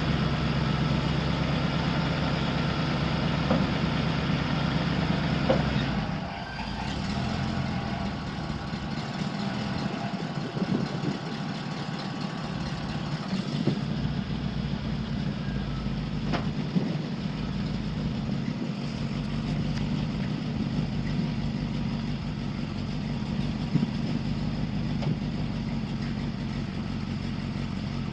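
A 1996 Chevrolet Kodiak C5500 truck's 6.0-litre V8 gas engine running steadily. About six seconds in it gets a little quieter and its low drone changes.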